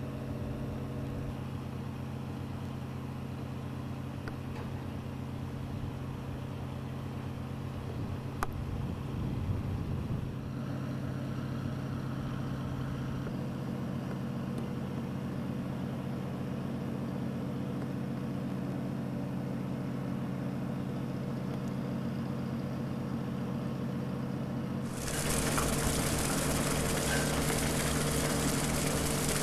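Fishing boat's engine running with a steady drone. About 25 seconds in the sound steps up, louder and with a strong hiss over the engine note.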